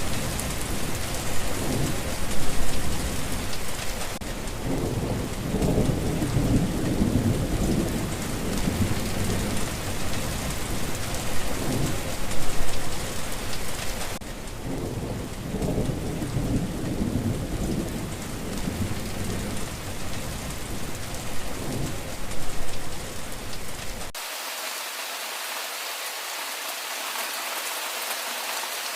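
Steady heavy rain with repeated low rumbles of thunder. About 24 s in, the thunder cuts off suddenly, leaving only the rain's hiss.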